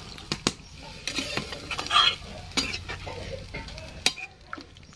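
Metal spatula stirring a thick curry gravy with potato chunks in a steel kadai: wet scraping against the pan, broken by several sharp clinks of the spatula against its side.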